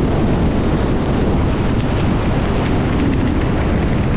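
Strong wind buffeting the microphone: a loud, steady rush with heavy low rumble.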